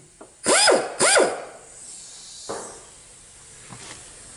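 Small handheld rotary tool blipped twice in quick succession, each burst a high whine that spins up and winds back down, as it cuts into the worn axle bushing of a Ford 6F35 transmission to weaken it for removal. A quieter stretch follows, with a single knock.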